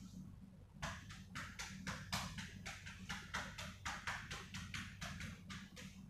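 Hands patting rhythmically on a patient's upper back in chest percussion, the tapping done to loosen phlegm in postural drainage. A fast, even run of sharp pats, about five a second, starts about a second in and stops just before the end.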